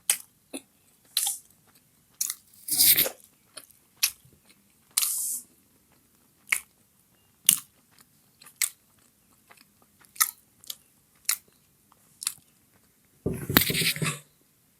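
Close-miked eating of chicken momos: biting and chewing, heard as separate wet mouth clicks and short smacks, with a longer, louder burst of noise near the end.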